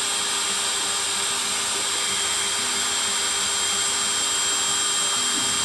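DeWalt cordless drill/driver running steadily at constant speed, driving a screw up through a plywood van ceiling panel into the wooden strip above. It makes a loud, even motor whine with a high steady tone and no change in pitch.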